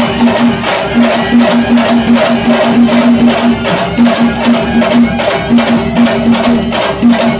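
Traditional rhythmic percussion music: drums and light percussion beating steadily, with a low note pulsing about five times a second in runs that break off and start again.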